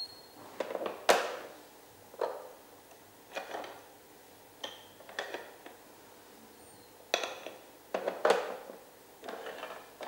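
A dog pushing and knocking the sliding pieces of a Trixie Move2Win puzzle toy: irregular knocks and short scrapes, roughly one every second.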